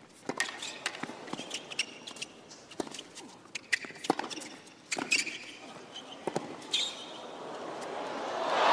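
Tennis rally on a hard court: sharp racket-on-ball strikes about once a second, with brief sneaker squeaks in between. Crowd noise swells near the end as the point finishes.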